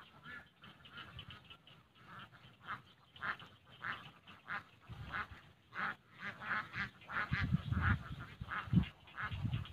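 Animal calls, most likely birds, repeated as short calls several times a second. In the second half they are joined by low, heavy thumps or rumbles.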